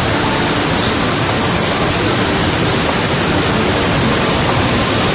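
Montmorency Falls, a large waterfall, sending up a loud, steady rush of water, heard close by.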